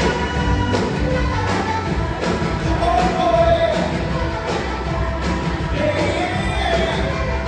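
Background music with a singing voice over a steady beat.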